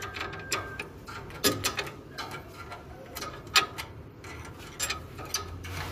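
A steel spanner clinking and scraping on the nuts and bolts of a diesel generator's radiator mounting: scattered, irregular metallic clicks and taps.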